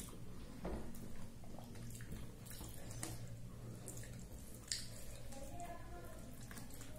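Close-miked, wet eating sounds: chewing and lip smacks, and fingers mixing rice and cauliflower-potato curry on a plate, made up of scattered small clicks with one sharper click about two-thirds through. A steady low hum runs underneath.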